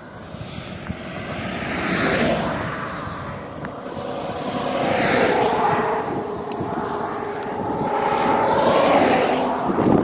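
Road traffic passing close by: three vehicles go by in turn, each a swell of tyre and engine noise that rises and falls, the last ending about a second before the end.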